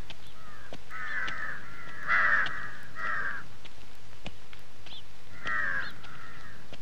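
Crows cawing: three harsh caws about a second apart, then another after a pause of about two seconds.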